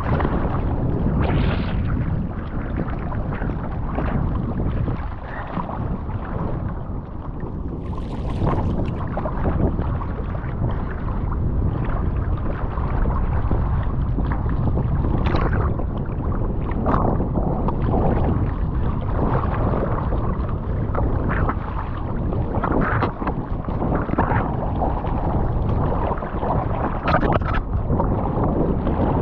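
Choppy ocean water sloshing and splashing right at the microphone as a swimmer strokes through rough surf, with heavy wind buffeting over a steady low rumble and irregular splashes.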